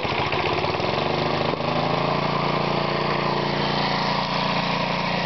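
Briggs & Stratton 3.5 hp lawnmower engine just after starting, running a homemade belt-driven air compressor. The engine picks up speed over the first second or two, then runs steadily. The compressor is running unloaded, with its outlet valve open so it is not yet building pressure.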